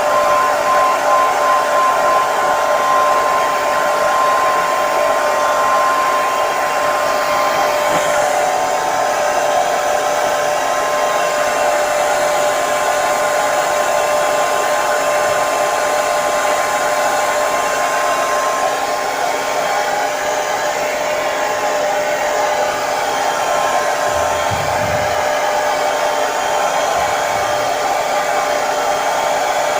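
Hair dryer running steadily, a constant blowing rush with a steady motor whine through it.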